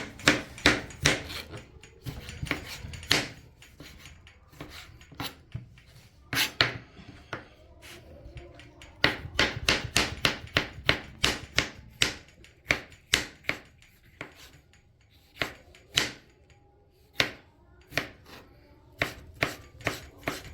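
Kitchen knife chopping tomatoes on a cutting board: quick runs of sharp knocks, with a lull in the middle and scattered single strokes near the end.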